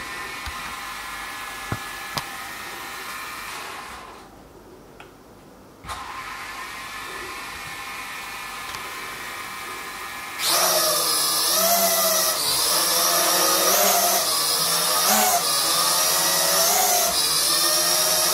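A JDRC JD-20S toy quadcopter's motors and propellers whine at low speed on the floor. They cut out for about two seconds, then start again. About ten seconds in they spin up much louder for takeoff, and the whine wavers in pitch as the drone hovers.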